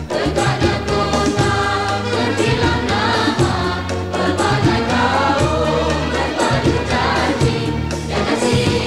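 Background music: a song with voices singing over a steady, sustained bass line.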